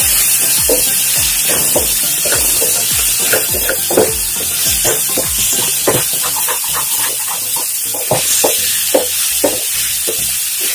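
Spatula scraping and knocking irregularly against a nonstick frying pan while a cabbage and cowpea stir-fry sizzles steadily.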